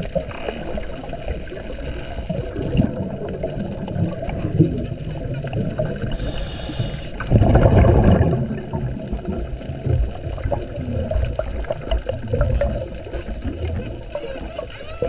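Underwater sound of a scuba diver among Hawaiian spinner dolphins. Faint high dolphin whistles come and go over a low water rumble. A scuba regulator hisses on an inhale about six seconds in, then gives a loud gush of exhaled bubbles about a second later.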